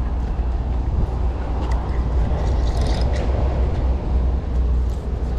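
Wind buffeting the camera microphone, a steady low rumble, with a few faint clicks.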